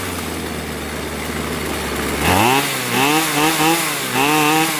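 Kanto 3800 two-stroke chainsaw engine running during carburettor tuning. It idles steadily, then from about two seconds in its speed rises and wavers four or five times in quick succession as the adjustment screw is turned.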